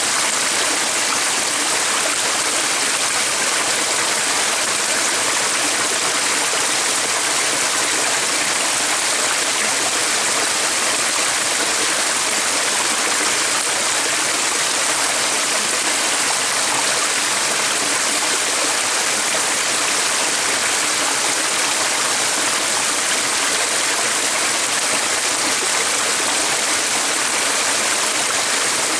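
Running water, a steady, even rush that does not change.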